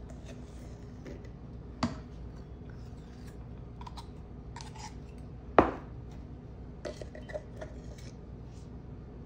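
Metal knife scraping thick peanut butter out of a stainless-steel measuring cup, with two sharp metal clinks against the cup, the louder one about five and a half seconds in. Light scrapes and taps follow over a faint steady hum.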